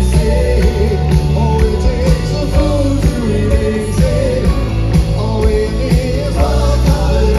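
Live rock band playing loudly, with electric guitars, drums keeping a steady beat, and a wavering melody line over them.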